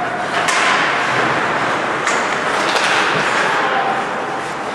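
Ice hockey game sounds: a steady wash of skates scraping the ice and crowd noise in the rink, with sharp clacks of sticks and puck about half a second in and twice more around two to three seconds in.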